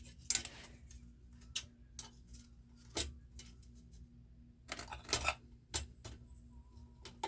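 Irregular sharp clicks and knocks of small hand tools and aluminium parts being handled during hand riveting, about eight in all, with a faint steady hum underneath.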